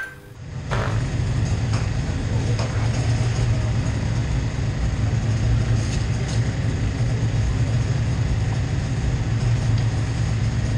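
A steady low engine rumble that sets in within the first second and holds at an even level. A few sharp clicks sound in the first three seconds.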